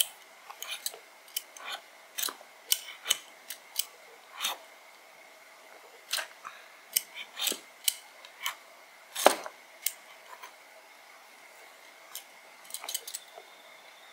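Stainless-steel vegetable peeler scraping the skin off a raw potato in short, irregular strokes, with one louder stroke about nine seconds in.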